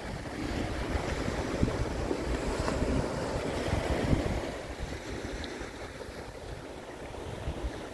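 Small waves breaking and washing up a sandy beach against rocks, with wind buffeting the microphone. The surf is louder in the first half and eases off after about four seconds.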